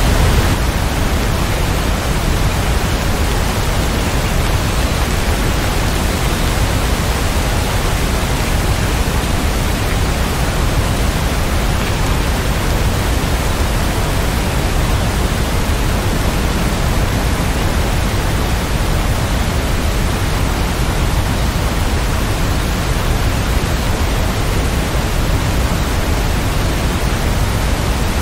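Steady rain, a dense even hiss with no separate drops or thunder standing out.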